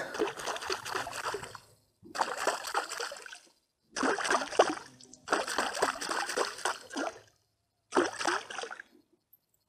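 A spinning rod's tip slapping and churning the lake surface in about five separate bursts of splashing, used to draw predatory fish such as perch and pike, which come to the noise of splashes.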